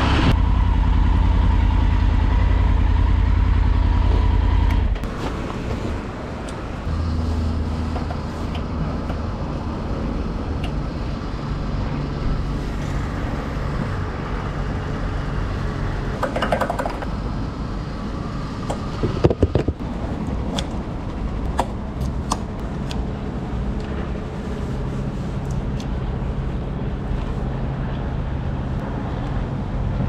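Triumph Tiger 900 Rally's three-cylinder engine and wind noise on the move, dropping away sharply about five seconds in. Then a steady low hum while the tank is filled from a petrol pump nozzle, with a brief cluster of sharp clicks about two-thirds of the way through.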